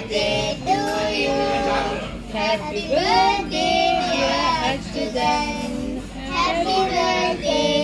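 A song with a high, child-like singing voice over an instrumental backing.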